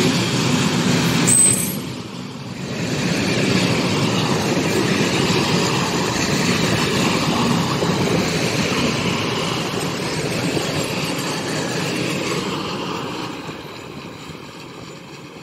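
Freight train's covered hopper wagons rolling past, a steady rumble of wheels on the rails with a brief high squeal about a second in. The noise fades near the end as the last wagons go by.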